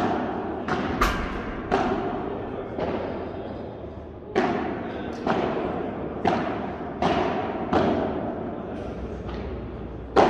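Padel balls being struck by rackets and bouncing off the court and glass walls: about ten sharp knocks at uneven intervals, each echoing in a large hall.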